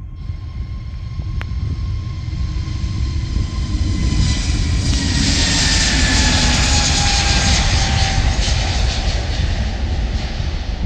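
Airbus A320-family twin-jet at take-off thrust, its engine roar building as it rolls down the runway and lifts off, loudest a little past the middle. A fan whine slides down in pitch as it passes.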